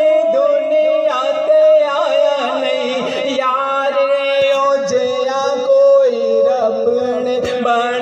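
A man singing a devotional song in long, ornamented held notes over a steady sustained drone.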